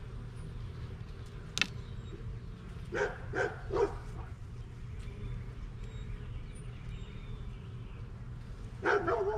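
A dog barking: three quick barks about three seconds in and another near the end, over a steady low hum, with a sharp click about a second and a half in.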